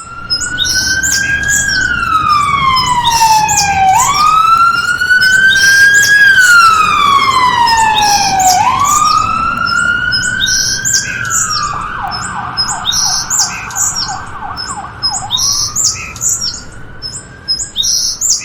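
Electronic siren wailing slowly up and down in long sweeps, switching to a fast warbling yelp about twelve seconds in for a few seconds, then going back to the wail. Short high chirps repeat over it the whole time.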